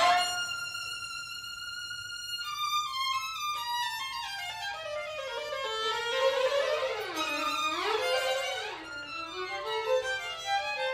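Two violins playing alone: a high held note, then a run of notes stepping downward, then glissandi sliding up and down and crossing each other about two-thirds of the way in.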